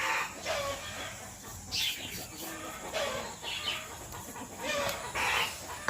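Chicken clucking: about five short calls spaced a second or two apart.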